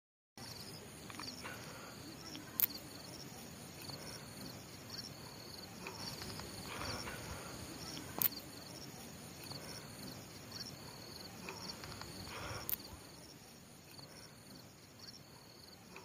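Rural outdoor ambience: insects chirping in a steady pulsing rhythm, with three sharp clicks that stand out as the loudest sounds.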